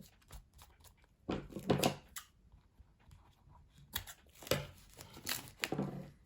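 Duct tape ripping off the roll and a plastic bag of rice crinkling as it is handled, in a few short bursts with quiet gaps between.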